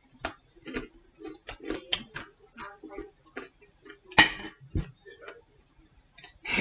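Someone chewing crunchy snacks: irregular crisp clicks and crackles, with one sharper clack about four seconds in.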